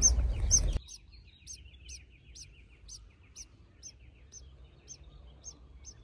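A small bird chirping steadily, short high chirps about twice a second. A dull handling rumble under the chirps stops abruptly about a second in.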